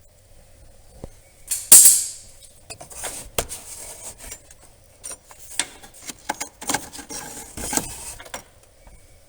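Hand tools and plastic engine-bay trim being handled: a sharp clatter about two seconds in, then a run of irregular clicks, rattles and scrapes. This is the work of taking off a VW Golf mk4's battery cover and its hold-down bolt.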